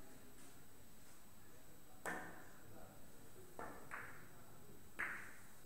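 Italian billiards: a cue tip strikes the cue ball sharply about two seconds in, followed by three more clicks as the balls collide over the next few seconds.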